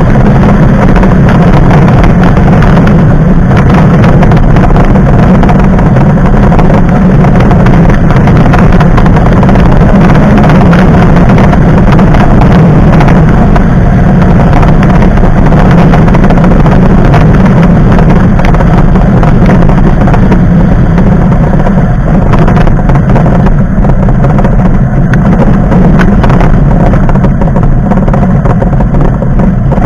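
Loud, steady motor-vehicle running noise: a constant low rumble that holds the same level and pitch throughout.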